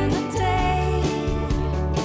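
Background music in a country style, with guitar over a steady bass.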